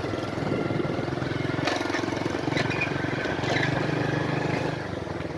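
Motorcycle engine running steadily under way, with a couple of faint knocks about a second and a half in.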